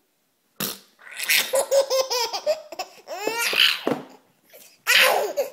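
A 7-month-old baby belly-laughing in several bursts separated by short pauses, with a run of quick repeated laugh pulses about a second in.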